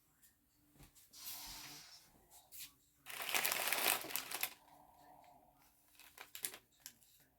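Crinkling, rustling handling noise, loudest for about a second and a half in the middle, with a few light knocks near the end.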